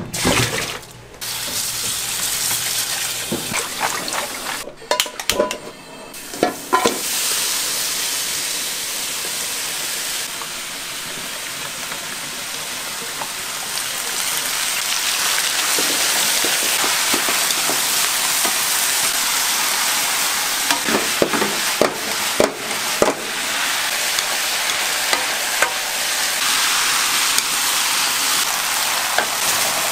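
Food sizzling in a hot frying pan as it is stir-fried, with occasional sharp clinks and scrapes of a utensil, a few in the first seven seconds and a cluster about two-thirds of the way through.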